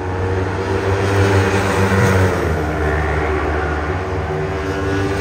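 400 cc sport-production racing motorcycles running at high revs past the track side, swelling to their loudest about two seconds in and then easing off.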